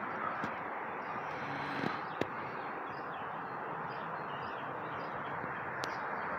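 Steady outdoor city background noise with a single sharp click about two seconds in.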